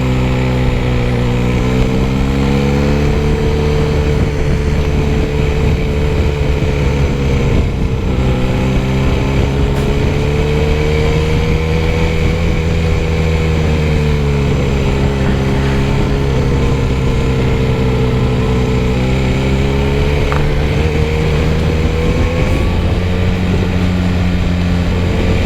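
Motorcycle engine running steadily while riding, its note climbing at first and then dipping and rising again three times as the throttle is eased and reopened.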